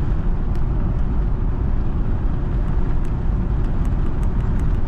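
Cabin noise of a 2003 Ford F-150 with a turbocharged 5.4 L Triton V8 under way: a steady low engine and road rumble, with faint light ticks in the second half.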